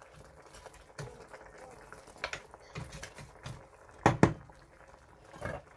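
Wooden spatula stirring chunks of fish in a stainless steel pot: soft scrapes and light knocks, then two sharp knocks close together about four seconds in as the spatula is lifted out.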